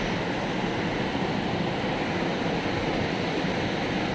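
Fast, shallow river rushing over rocks: a steady, even rush of water.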